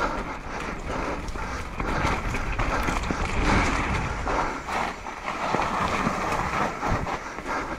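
Mountain bike descending a dirt trail: knobby tyres rolling over dirt and roots, with the bike knocking and rattling over bumps and wind noise on the microphone.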